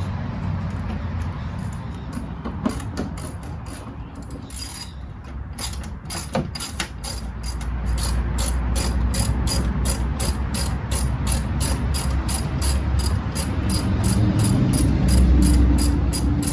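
Ratchet wrench clicking in a fast, even run of about five clicks a second, starting about five seconds in, as a fastener is loosened.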